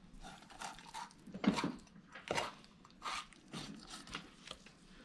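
Chef's knife filleting a steelhead, the blade working along the backbone and rib bones in a series of faint, uneven crunches and scrapes, the strongest about a second and a half and just past two seconds in.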